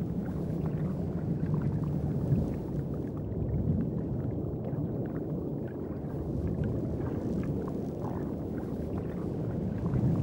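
Underwater ambience: a steady low rumble with faint scattered clicks.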